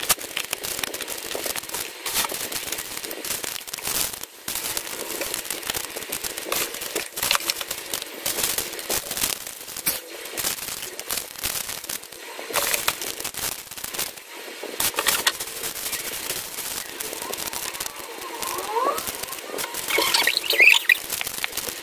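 Small plastic bags of beads crinkling and tapping as they are handled and packed into a plastic drawer, a continuous run of light rustles and clicks.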